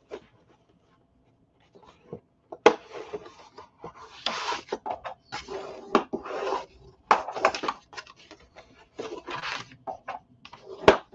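Stiff cardstock being folded along its score lines and pressed flat by hand on a cutting mat: irregular bursts of paper rustling and sliding, with a sharp tap about two and a half seconds in and another near the end.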